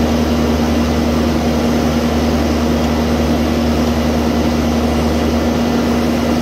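Bobcat loader's diesel engine running steadily, a constant loud drone with a steady low hum that doesn't rise or fall.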